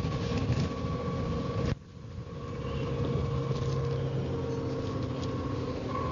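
Dennis Trident double-decker bus running, heard from on board, its engine and drivetrain rumbling under a steady high tone from its distinctive axle noise. The sound cuts out abruptly a little under two seconds in, then builds back up.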